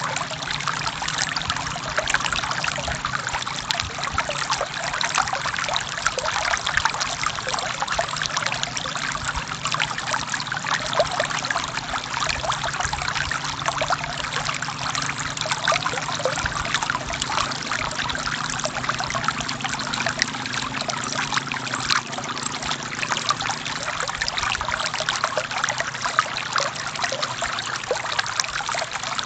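Forest stream flowing over rocks: steady, dense water with many small splashes and trickles, and no let-up.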